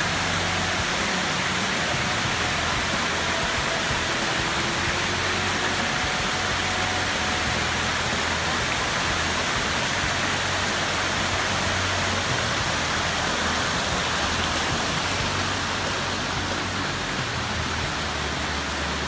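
Waterfall: a steady rush of water falling down a cliff into a rocky pool, a little quieter near the end.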